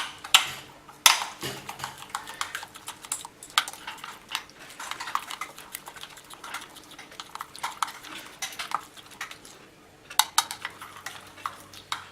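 A spoon clinking and scraping against a bowl in irregular taps as a thick yogurt-and-spice marinade is stirred.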